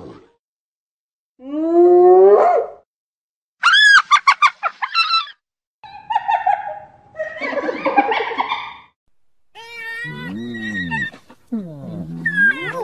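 Spotted hyena calling: a rising whoop about two seconds in, then a quick run of high-pitched giggling, followed by rougher calls and several calls that rise and fall in pitch.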